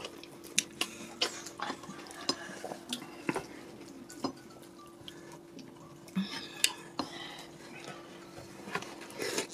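Close-miked eating sounds of fufu and egusi soup eaten by hand: wet mouth clicks and chewing, with fingers scooping the soup from the bowl. A steady low hum runs underneath.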